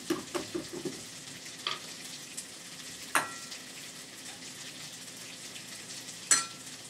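Peanut butter jar being opened and scooped from: a few small clicks from the lid and jar, then two sharp knocks of a utensil against the jar or bowl, each ringing briefly, over a faint steady hiss.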